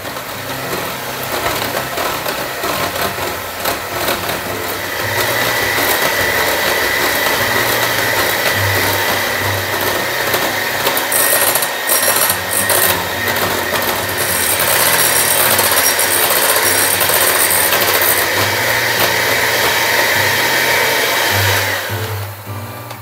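Electric hand mixer's motor whirring steadily as its beaters whip cream from liquid to stiff whipped cream, growing louder about five seconds in with a steady whine, then switched off shortly before the end.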